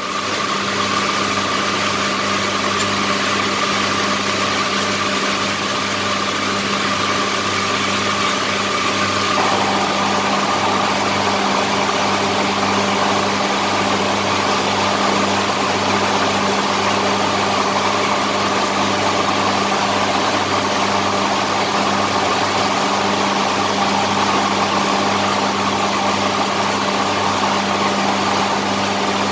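An engine or motor running steadily at one speed, a constant drone with an unchanging pitch.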